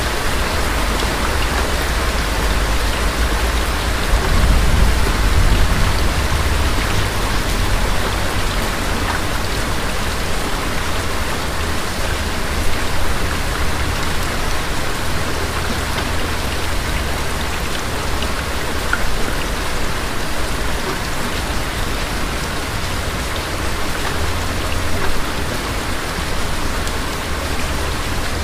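Steady rain falling, with a low rolling rumble of thunder underneath that swells about four to six seconds in and surges briefly a few more times.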